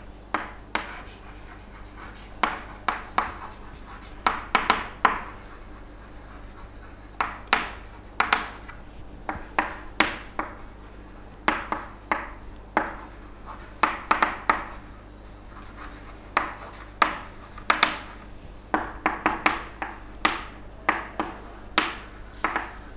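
Someone writing by hand: a long run of short, irregular scratchy strokes, some in quick clusters, over a faint steady hum.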